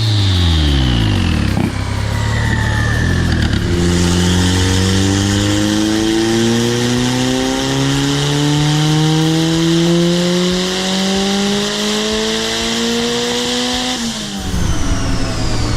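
Turbocharged Honda four-cylinder car engine under hard acceleration. Its pitch falls briefly at first, then climbs steadily for about ten seconds under a high-pitched hiss, and drops off suddenly near the end.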